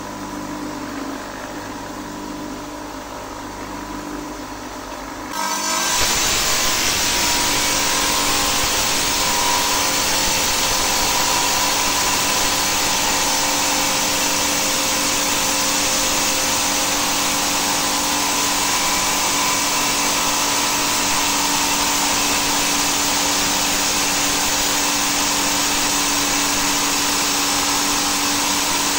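Stone-cutting saw running: a steady motor hum, then about five seconds in a much louder, even grinding hiss starts and holds as the blade works through stone.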